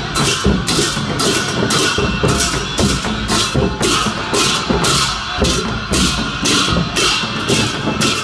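A procession band of Newar dhimay drums and large hand cymbals playing a steady beat. The cymbals clash about twice a second over heavy, dense drum strokes.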